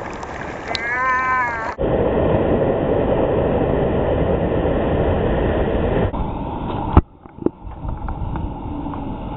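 Breaking surf washing over a camera held down in the water: a loud, steady rushing of churning wave water for about four seconds, ending in a sharp knock and quieter water.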